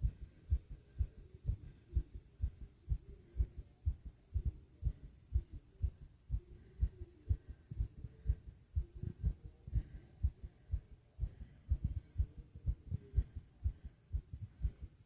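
Fast heartbeat: a quick, steady run of low, dull thumps.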